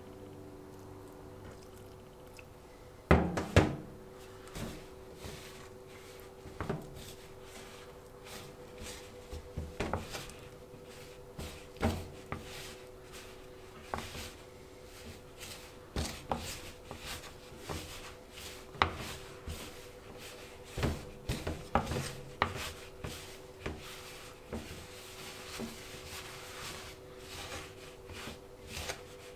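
Bread dough being kneaded by hand: irregular soft thumps and rubbing, with two heavy thuds about three seconds in, over a faint steady hum.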